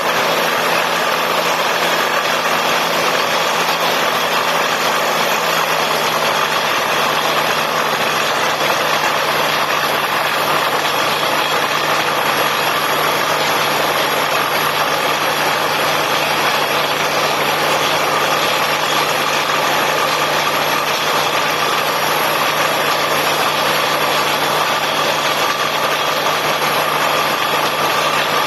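Borewell drilling rig machinery running steadily: a loud, even mechanical noise with a constant hum and no pauses or changes.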